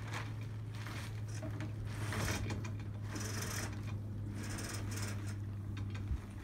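Blue tarpaulin sail rustling and flapping in swells as it is rolled up around the mast by a homemade furling unit, with scattered clicks and rattles from the furling line and gear over a steady low hum.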